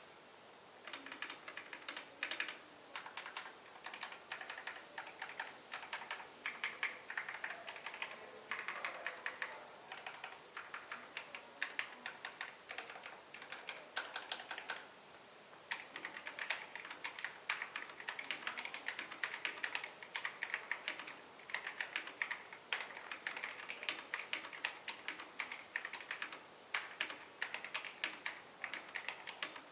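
Typing on an Epomaker TH96 gasket-mounted mechanical keyboard: rapid key clacks in runs, with a short pause about halfway through.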